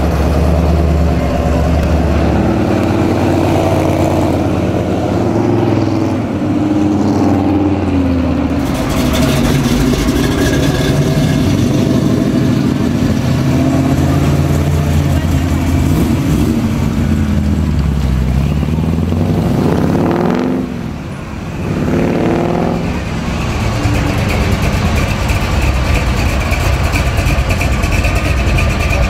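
Loud V8 engines of classic muscle cars running and revving as they pull away one after another, the engine pitch climbing and falling again and again, with a steep rising sweep about two-thirds of the way through as one accelerates hard.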